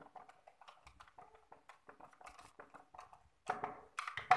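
Screwdriver turning a screw into the housing of a Makita E2835 chainsaw: a run of faint small clicks and scrapes, with a few louder clattering knocks near the end.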